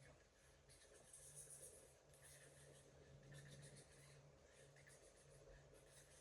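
Very faint, irregular scratching and rustling of a kitten play-fighting with a hand, claws catching on skin and fabric, against a faint low hum.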